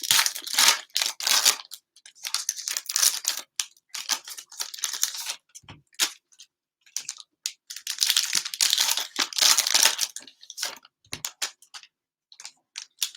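Plastic-wrapped cello packs of trading cards being torn open and their wrappers crinkled, in a run of quick rustling tears with short pauses.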